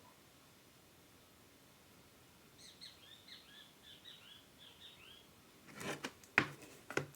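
A small bird chirping a quick run of short, falling notes, about four a second, for nearly three seconds. Then several sharp clicks and rustles follow near the end, the loudest of them about 6.4 seconds in.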